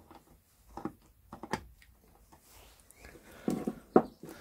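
Scattered short metallic clicks and knocks of a socket wrench working the bolts on a Land Rover Series gearbox's detent bracket, with a cluster of knocks near the end, the loudest a sharp one.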